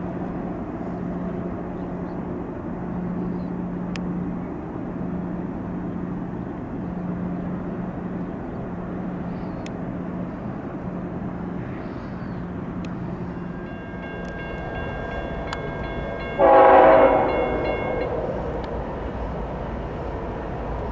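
Freight train rumbling steadily as double-stack container cars roll by. A few seconds before the end, a diesel locomotive's air horn sounds one loud blast of several notes at once, lasting about a second and a half before fading.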